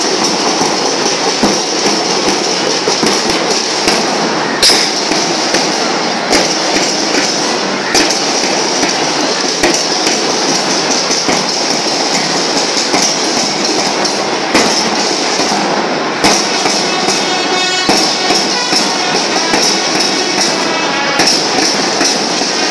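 School marching band (band melam) playing: dense, steady drumming with many sharp strokes under a ringing haze of cymbals. A brief high pitched note sounds over the drums about two-thirds of the way through.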